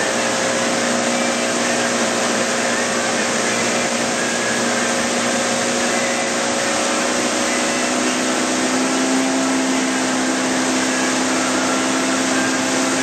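Towing motorboat's engine running steadily at speed, with a constant rush of wind and water.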